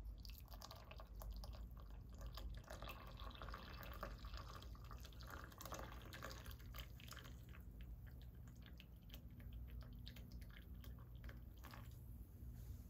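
Hot water poured from a kettle spout into a ceramic mug onto a tea bag: a faint steady stream that stops about seven seconds in, followed by a few soft drips.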